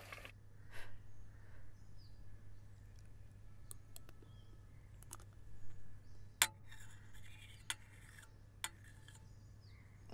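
Metal spoon clinking and scraping against a steel bowl and plate: a few separate sharp clicks, the loudest about six and a half seconds in, over a low steady room hum.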